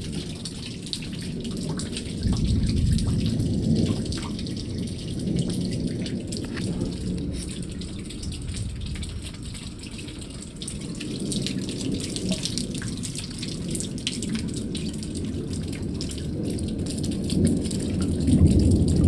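Thunder rumbling low and rolling, swelling about two seconds in and again near the end, with raindrops ticking and dripping throughout.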